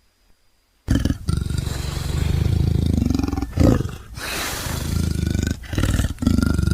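Dinofelis creature sound effect made from leopard and tiger recordings: deep, rasping big-cat growls and snarling roars that start about a second in after a brief silence, broken by a few short pauses.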